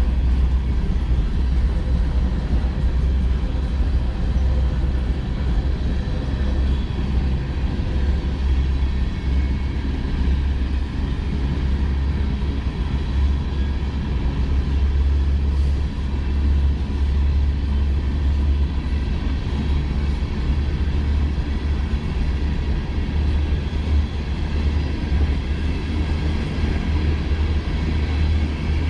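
Freight train of open-top hopper cars rolling past, a steady low rumble of wheels on rails that holds even throughout.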